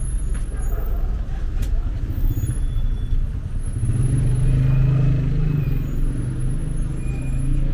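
City street traffic: a steady rumble of cars driving past, swelling about four to five seconds in, with faint voices of people walking by.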